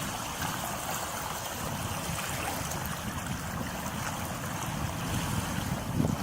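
Water rushing and gurgling along a sailboat's hull as it sails. Near the end, gusts of wind buffet the microphone.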